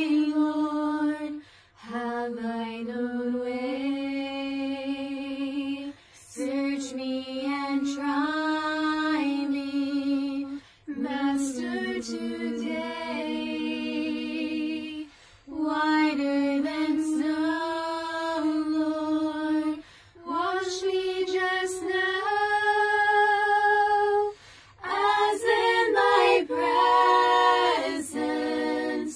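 Four women singing a cappella in close harmony, holding long notes in slow phrases with a short breath between phrases every four to five seconds.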